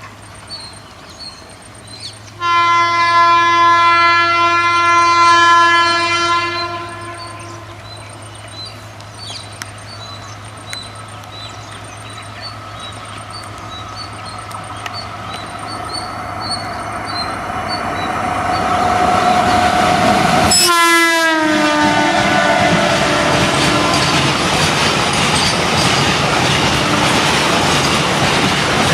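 WAG-12B electric freight locomotive's horn sounds one loud blast of about four seconds, then the train draws closer, getting steadily louder. About 21 seconds in, a second horn blast falls in pitch as the locomotive passes, followed by the steady rumble and clickety-clack of freight wagons going by.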